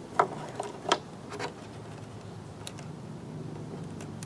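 Small, sharp plastic clicks and rattles of wire connectors and the plastic housing being handled at a Mosquito Magnet's circuit board, several in the first second and a half and one more a little later.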